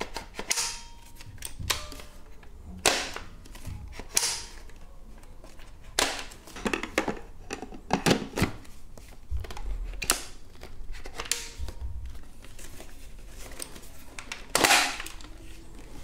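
Hard plastic parts of a Xiaomi G11 stick vacuum's dust bin and cyclone assembly being handled and fitted together by hand: a string of irregular clicks and knocks, with the motor off.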